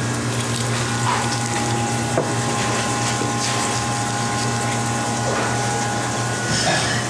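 Steady hum and rushing hiss of commercial kitchen machinery, with a thin whine through the middle. A long knife cuts through a bigeye tuna's flesh and bones, with a small sharp knock about two seconds in.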